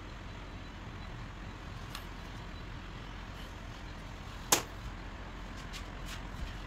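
Low steady background hum. One sharp click comes about four and a half seconds in, and a few lighter ticks follow near the end, as the gear on its splined shaft is handled in a steel bench vise.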